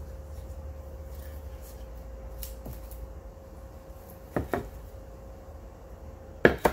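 Light handling knocks from gloved hands working a plastic mixing cup and a flat white board on a plastic-covered work table: two small knocks about four and a half seconds in, then one sharper knock near the end, over a steady low hum.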